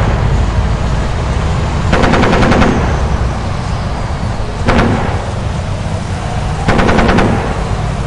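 Trench-warfare battle ambience: three bursts of rapid machine-gun fire, a longer one about two seconds in, a short one near the middle and another near the end, over a steady low rumble.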